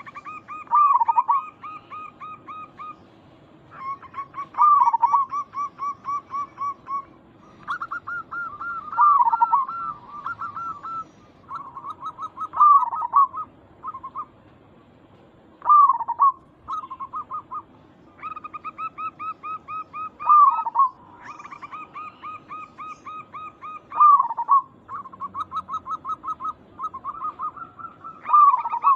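Zebra dove (perkutut) singing its cooing song over and over: each phrase opens with a loud swooping coo and runs on into a quick string of short staccato coos, repeated about every four seconds, eight times.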